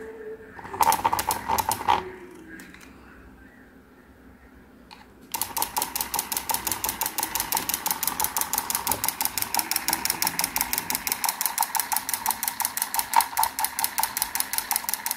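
Rapid, even chugging like a small single-cylinder diesel idling, from the miniature PVC Kubota diesel engine model. A short burst of the same rapid beat comes about a second in, then a few seconds later the chugging starts suddenly and keeps a steady rhythm.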